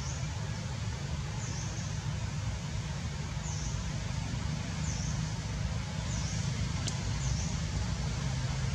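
Outdoor ambience: a steady low rumble with a faint, short, high chirp repeating every second or two, and a single sharp click about seven seconds in.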